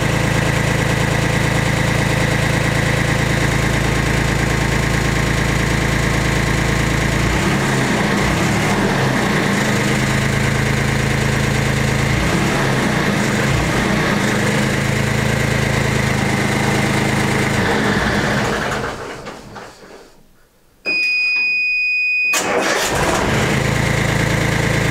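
Yanmar compact tractor's diesel engine idling, then switched off about nineteen seconds in and running down. With the oil pressure gone, the low-oil-pressure warning buzzer sounds a steady high beep for about a second and a half. The engine is then started again and idles on.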